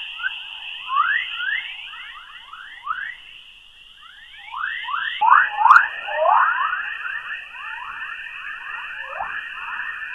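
Space sound turned into audio, such as a spacecraft's plasma-wave or radio recording: a steady high tone with many short chirping glides beneath it, several a second. The tone and chirps shift slightly about five seconds in.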